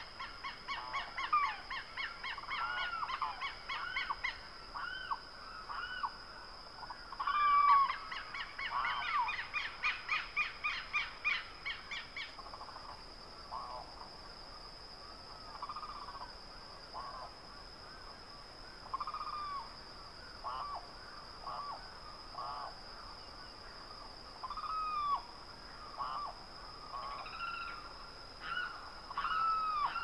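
Rural early-morning ambience of birds calling: quick runs of repeated arched calls in the first half, then scattered single calls, over a thin steady high-pitched tone.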